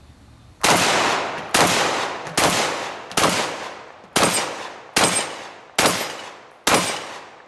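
Mossberg 930 JM Pro semi-automatic 12-gauge shotgun fired rapidly, eight loud shots a little under a second apart, each trailing off before the next.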